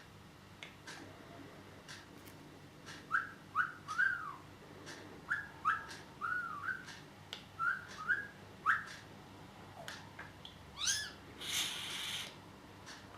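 Budgerigar whistling a run of short rising and falling notes, a sound the owners taught it, then giving a rising squeak followed by a harsh, scratchy call near the end. Faint clicks run underneath.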